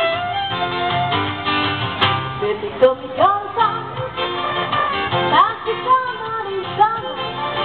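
Acoustic music with guitar, and a melody line that swoops up into its notes in slides from about three seconds in.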